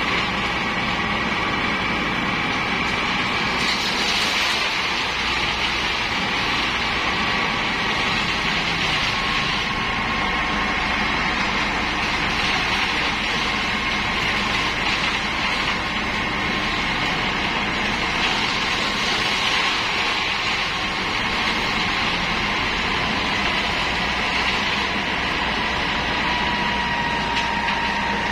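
Komatsu PC78US mini excavator's diesel engine and hydraulics running steadily as it works, with a steady whine over the engine noise.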